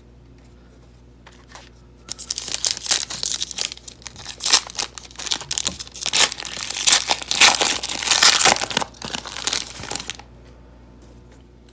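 Foil wrapper of a Panini Prestige football card pack being torn open and crumpled: a dense crinkling and crackling that starts about two seconds in and stops shortly before the end.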